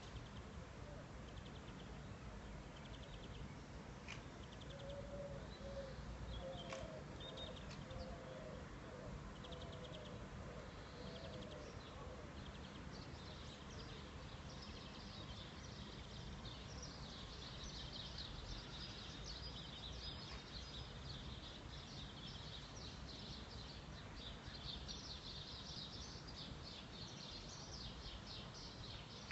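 Faint outdoor ambience: a low steady background noise with birds calling. A series of short, lower chirps comes about a quarter of the way in, and a fast high-pitched trill runs through the second half.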